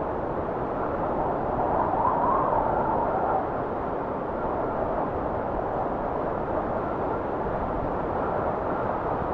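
Wind blowing steadily, a gust swelling about two seconds in with a faint whistle that rises and falls, then easing back.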